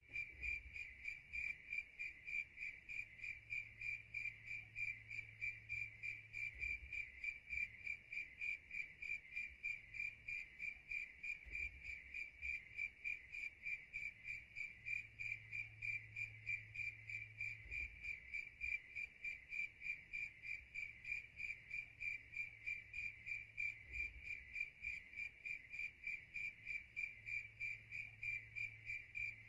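A steady, high-pitched chirping that pulses several times a second, like a cricket's song, with a faint low hum coming and going underneath.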